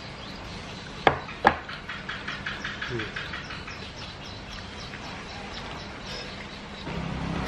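Two sharp clicks, chopsticks knocking against a plate or bowl, followed by a rapid series of faint high chirps at about four or five a second. A low steady hum comes in near the end.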